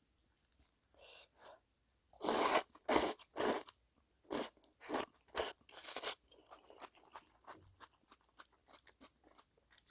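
Close-miked crunching of fresh napa cabbage kimchi. About two seconds in comes a run of about seven loud, crisp bites, roughly two a second, which then gives way to softer, faster chewing clicks.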